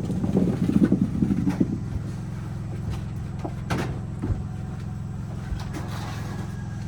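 An engine running, louder and uneven for the first couple of seconds, then settling into a steady idle, with a sharp knock about four seconds in.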